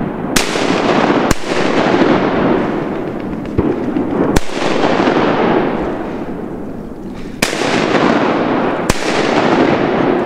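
Five shotgun blasts, a quick pair, then a single, then another pair, each followed by a long rolling echo that fades over a couple of seconds.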